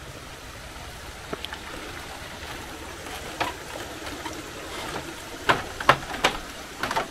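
Footsteps on a woven bamboo footbridge, the deck and bamboo poles creaking and clacking underfoot, the clacks growing louder and closer together in the second half, over the steady rush of a stream.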